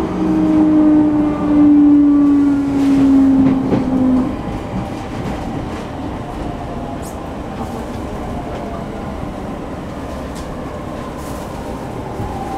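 Sotetsu 10000 series train's Mitsubishi IGBT-VVVF inverter and traction motors whining, heard from inside the car over the running noise of the wheels on the rails. The pitch slides downward as the train brakes. A loud low tone cuts off about four seconds in, and fainter falling tones carry on after it.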